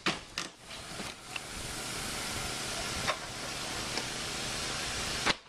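A few sharp knocks and clatters from wood shakes being torn off a roof, heard in the first second. They give way to a steady hiss that cuts off suddenly near the end.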